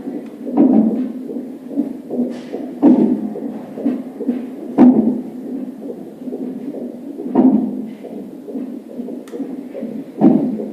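Hiccups of an unborn baby at about 35 weeks of pregnancy, heard through the mother's belly. Five strong thumps come about every two to three seconds over a fast, steady pulsing, and the hiccups sound like heartbeats.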